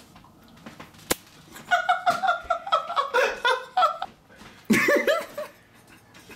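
A sharp click about a second in, then laughing in quick repeated pulses for a couple of seconds, and a shorter burst of laughing near the end.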